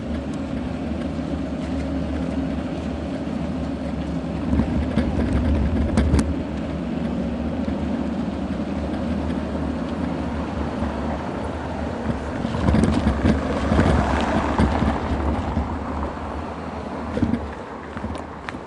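Continuous low rumble of a bicycle rolling downhill over paving stones, picked up by an action camera riding on the bike, with wind noise on its microphone. It swells about five seconds in and again for a couple of seconds past the middle, with a sharp click about six seconds in.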